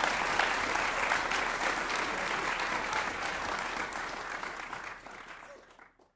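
Audience applauding, the applause fading out near the end.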